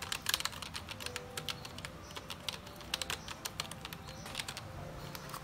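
Keys of a Keychron K1 V4 low-profile mechanical keyboard being pressed, a run of quick, irregular clicks several a second.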